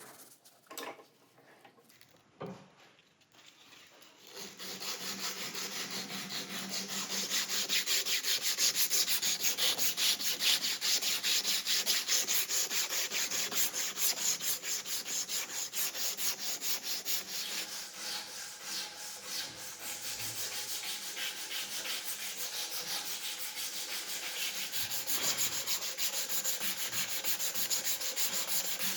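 Hand sanding on a knife: sandpaper rubbed back and forth in rapid strokes, starting about four seconds in after a few light clicks.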